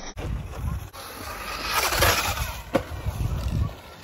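Electric radio-controlled buggy running on a dirt track: motor and tyre noise swell as it passes about two seconds in, with one sharp knock near the three-second mark, over gusty wind rumble on the microphone.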